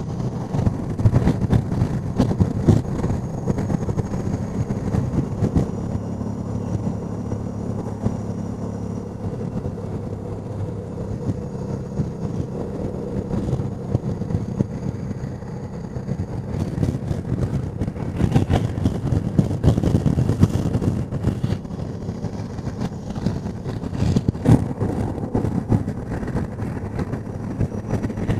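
Honda Deauville NT650V's V-twin engine running at a steady cruising pitch on the road. Wind rushes over the microphone, gusting louder about two-thirds of the way in and again near the end.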